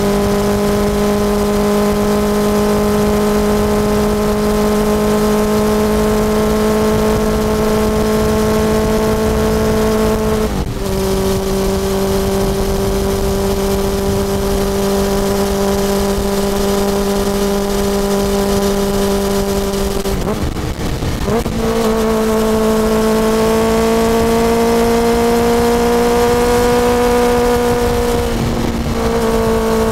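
2006 Suzuki GSX-R1000R K6 inline-four engine through a full Yoshimura titanium exhaust, running at steady high revs under way. The note breaks briefly three times as gears change: the revs drop slightly about ten seconds in, rise after a longer break about twenty seconds in, and drop again near the end.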